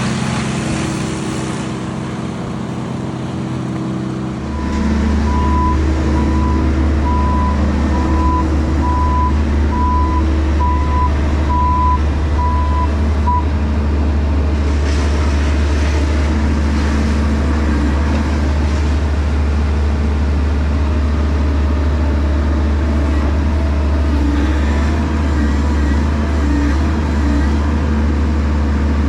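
Heavy diesel equipment running. About four and a half seconds in it gets louder with a deep, steady drone, and a back-up alarm beeps about once a second for some eight seconds.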